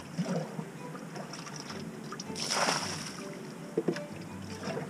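Water sloshing and splashing in a full in-ground pit as a gloved hand works in it, with a louder splash about two and a half seconds in and two sharp knocks near the end.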